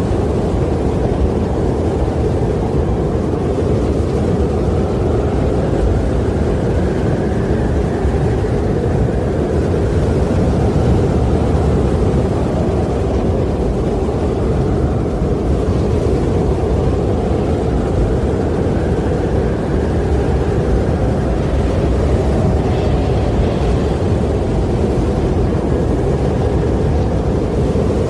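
Wind blowing steadily with a deep rumble, swelling and easing in slow gusts that bring a faint rising and falling whistle.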